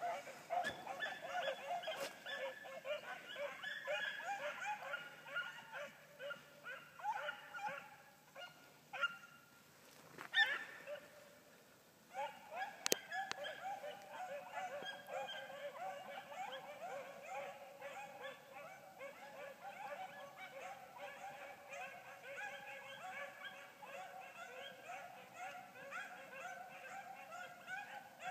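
A pack of hunting hounds baying together on a chase: many short overlapping cries running on without a break. The cries thin out for a few seconds a little before midway, with one sharp louder cry, then resume full.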